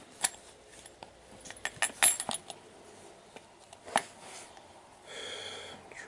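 Small metal clicks and taps from a lock pick and tension wrench working in the keyway of an ERA discus padlock while picking its pins. The clicks come scattered, with the loudest cluster about two seconds in.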